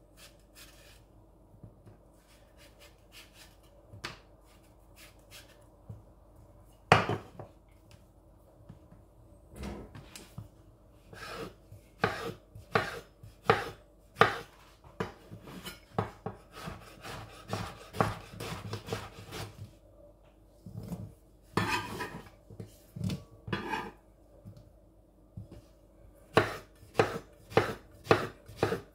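Kitchen knife cutting peeled mango on a wooden cutting board: faint scraping at first, then the blade knocking on the board, one sharp knock about seven seconds in, then many chops, with a quicker run of about two or three a second near the end.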